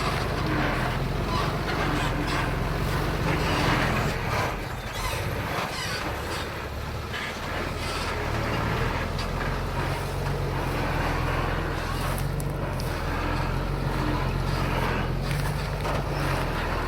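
Diesel engine of heavy earthmoving machinery running, with clatter above its low engine note. The low note drops away about four seconds in and comes back a few seconds later.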